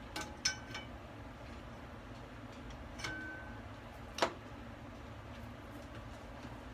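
Clicks and metallic clinks at a tabletop gas stove as the burner under the pot of water is lit: three quick clinks with a short ring just after the start, a ringing click about three seconds in, and a sharper, louder click just after four seconds.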